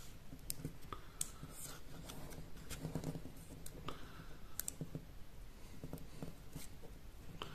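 Faint crinkling and scattered small clicks of a paper euro banknote being creased between the fingertips as its small corners are folded in.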